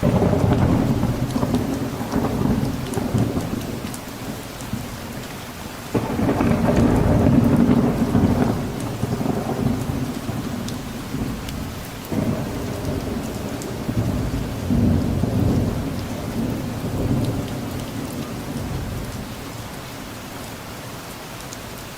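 Steady rain with rolling thunder. Three rumbles break in suddenly, at the start, about six seconds in and about twelve seconds in, and each dies away slowly, leaving only the rain near the end.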